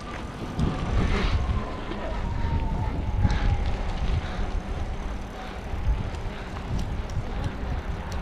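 Wind rumbling on the microphone while riding along a street, with a faint whine slowly falling in pitch over several seconds.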